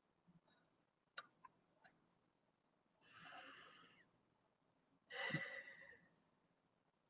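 A person breathing in near silence: two soft audible breaths, the second a little louder, after a few faint clicks.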